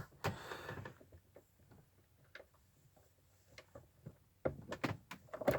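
Scattered light clicks and taps of ignition switch parts being handled and worked into place, with the clicks coming thicker and louder near the end.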